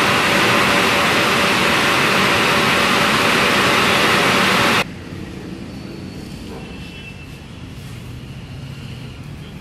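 Car wash machinery running: a loud, steady rushing noise with a hum under it, which cuts off suddenly about five seconds in and leaves a much quieter background.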